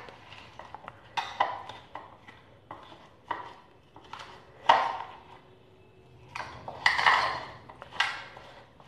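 Metal spoon scraping and clinking against a bowl while stirring a mix of mashed boiled potato and chopped vegetables. The scrapes and taps come irregularly, the loudest about halfway through and again in the last third.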